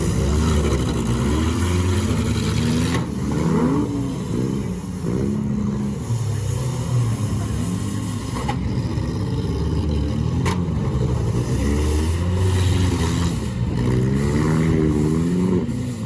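Several demolition derby cars' engines revving up and down together, with two sharp bangs about two seconds apart midway through.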